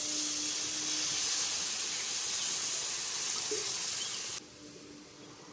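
Water poured from a bottle into a hot kadai of frying prawns and masala, with a steady hissing rush of water hitting the hot oil. It cuts off suddenly about four seconds in.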